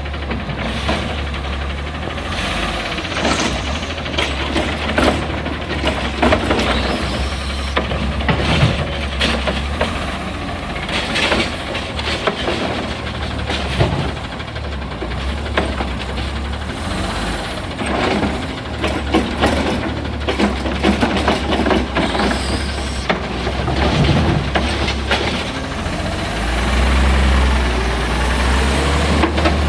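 Heil Rapid Rail automated side-loader garbage truck's natural-gas engine running steadily, with repeated clanks and bangs from the lifting arm and carts. The engine gets louder near the end.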